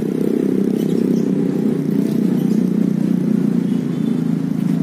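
Steady low drone of road traffic, the engines and tyres of many vehicles running together.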